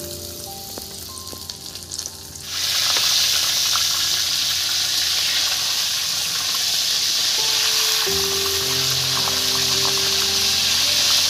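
Masala-coated lote (Bombay duck) fish pieces going into hot oil: about two and a half seconds in, the oil suddenly breaks into a loud sizzle that goes on steadily as the fish fries.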